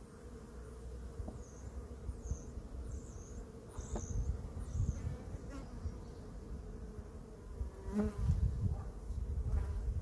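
Honeybees buzzing around an open hive, a steady hum from a live colony at its first inspection after winter. A louder buzz comes briefly about eight seconds in.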